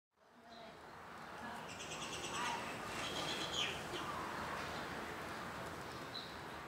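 Small birds chirping in quick high trills about two seconds in, with a short call soon after, over steady background noise.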